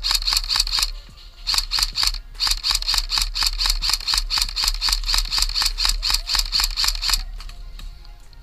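Airsoft electric gun (AEG) firing rapid, even shots, about six a second, in three bursts; the last burst runs about five seconds.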